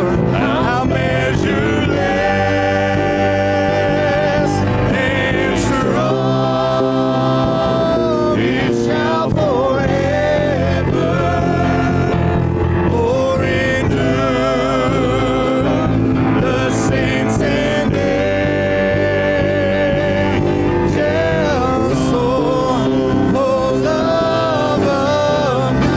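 Live church worship band playing a gospel praise song, with singers holding long, wavering notes over the band.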